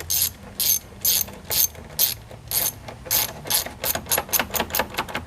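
Socket ratchet clicking in short back-strokes as it tightens an 8mm hose clamp on the intake tube, about two strokes a second, coming faster toward the end.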